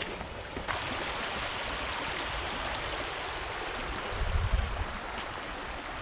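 Shallow creek rippling over a stony riffle: a steady rush of running water that comes up louder just under a second in. A brief low rumble about four seconds in.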